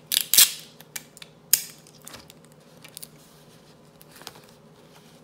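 Clear adhesive tape being pulled off its roll and torn off in short ripping bursts, the loudest just after the start and about a second and a half in, with softer crackles as it is pressed onto paper squares.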